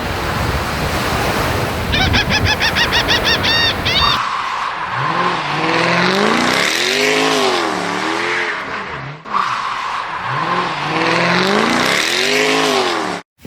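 A vehicle engine revving up and down again and again, with a quick run of short high chirps about two seconds in; it cuts off suddenly near the end.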